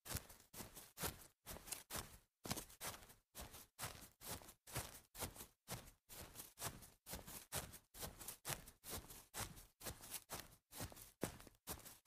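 Sneakers stepping quickly on grass: short footfalls in a steady, quick rhythm of about three a second.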